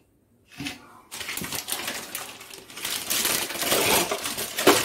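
Metallic clinking and rattling as a steel-rimmed glass lid and a stainless steel casserole are handled and the lid is set on the pot.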